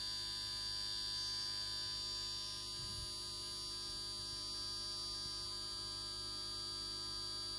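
Steady electrical hum with a constant high-pitched whine above it.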